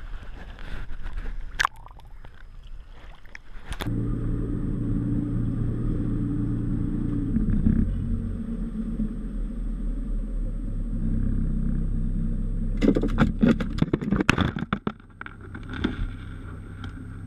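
Water sloshing around a camera at the sea surface for the first few seconds, then a boat's outboard motor running steadily at idle. About two-thirds of the way through, a quick clatter of knocks.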